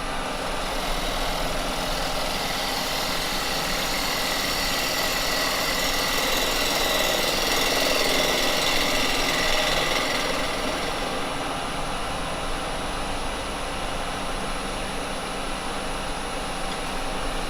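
Wood lathe running steadily at low speed while a carbide chisel cuts the foot of a spinning cherry blank. The cutting hiss swells toward the middle and eases off again over the motor's steady hum.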